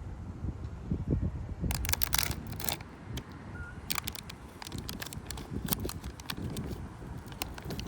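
Clusters of sharp crackles and clicks over a low rumble, densest about two seconds in and again around four seconds.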